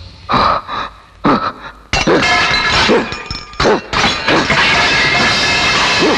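Several sharp crashes with shattering, the first few spaced apart, then a dense run of crashing and breaking over music from about two seconds in.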